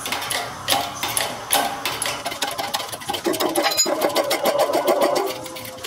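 Hydraulic shop press being worked, a rapid run of metallic clicks and clatter, as it presses a bearing cup into a Nissan R200 differential housing.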